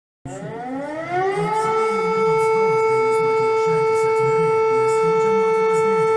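Civil defence siren starting up, its pitch climbing for about a second and a half before settling into one steady, loud tone.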